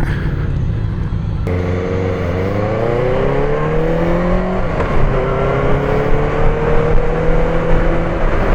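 Benelli TNT600 inline-four motorcycle engine accelerating: the revs climb, drop sharply once at an upshift about halfway through, then climb again more slowly. Steady wind noise runs underneath.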